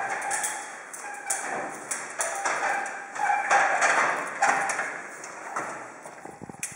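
Knocks and taps from an aluminium stepladder as a man climbs and stands on it, over rustling and handling noise.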